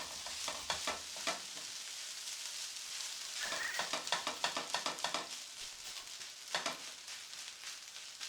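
Fried rice sizzling in a hot, oiled pan while a spatula stirs and turns it over, with repeated short scrapes and clicks against the pan.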